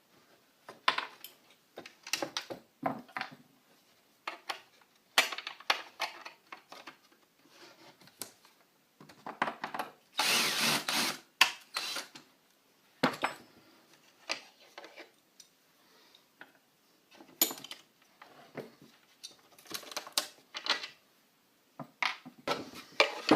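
Flat steel multi-tool clicking and scraping on skateboard truck nuts and bolts as they are worked loose, in short irregular strokes with pauses, and a longer stretch of steady scraping about ten seconds in.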